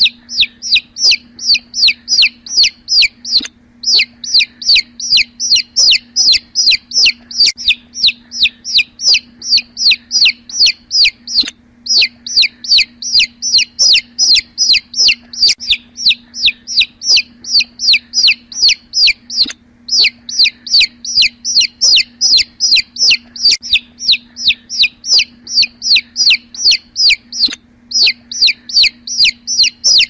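A domestic chick peeping over and over, about four high, sharply falling peeps a second, with brief breaks every eight seconds or so. A faint steady hum runs underneath.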